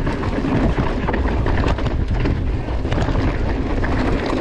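A mountain bike descending a rough, rocky trail at speed: tyres grinding over loose ground and the bike rattling over bumps, with wind buffeting the microphone.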